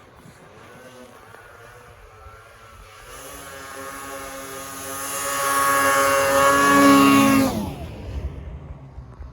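A snowmobile engine runs at high revs, growing louder as it approaches. Just after the loudest point the pitch drops suddenly and the sound fades as the sled speeds past.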